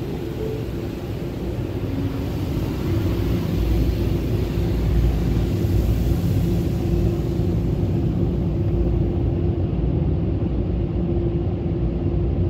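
Automatic car wash heard from inside the car during the spot-free rinse: a steady low rumble of the wash machinery with a steady hum, and water spraying over the glass. The rumble grows a little louder in the first few seconds, and the higher hiss drops away about eight seconds in.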